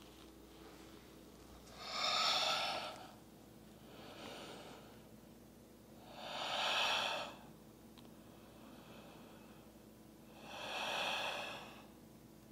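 A woman's slow, deep breaths, loud enough to hear, paced with the yoga poses she holds. Three strong breaths come about four seconds apart, with a fainter one between the first two.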